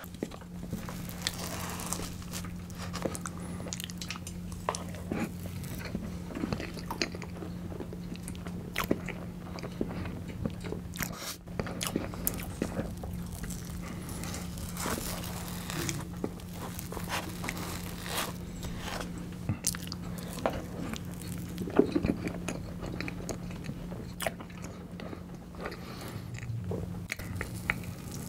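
Close-miked eating sounds of a person eating tiramisu cake: wet chewing and mouth smacks, with a wooden spoon scooping and scraping in a plastic tub. A steady low hum runs underneath.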